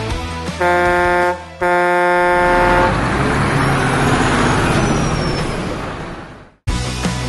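Electronic truck-horn sound from a Majorette Mack Granite garbage-truck toy: two blasts of one steady horn tone, a short one and then a longer one. A rushing noise follows and fades away.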